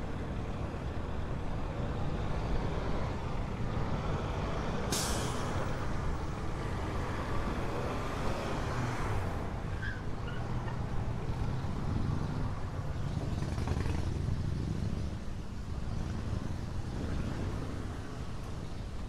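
Heavy diesel trucks running, a steady low engine sound, with a short sharp hiss of truck air brakes about five seconds in.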